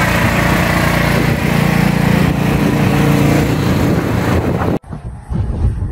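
Walk-behind snowblower's small petrol engine running steadily and loudly, then cut off abruptly near the end, leaving a much quieter rush.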